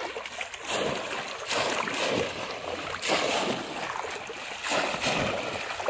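Shallow muddy water splashing and sloshing as bamboo polo fish traps are plunged down into it and people wade and grope through it, in an irregular run of splashes about two a second.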